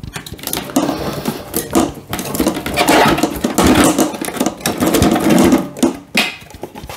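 Plastic clicking, rattling and scraping as the latch clips of an Aquael Ultramax canister filter are flipped open and its head is worked loose and lifted off the canister.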